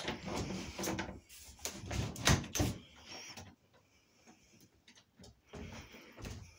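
Irregular knocks and light thumps with bursts of rustling: footsteps on a wooden floor and handling of a handheld phone as it moves through a small room. The loudest knock comes about two seconds in, followed by a quieter stretch before more knocks near the end.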